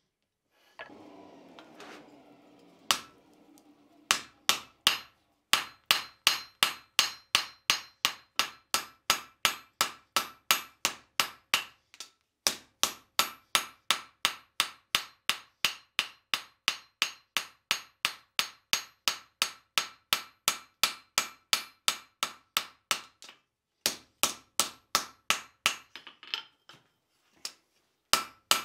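Hand hammer striking a red-hot railroad spike on a steel anvil, about three blows a second, each blow ringing off the anvil; this is the blade of a rail-spike tomahawk being forged out. A short scraping noise comes before the hammering starts, and the blows pause briefly twice near the end.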